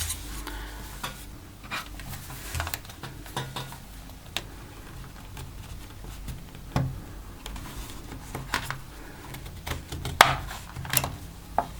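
Plastic pry tool clicking and scraping against a Samsung Galaxy Tab 3 tablet's plastic housing as it is levered apart, with scattered sharp clicks, the loudest about ten seconds in.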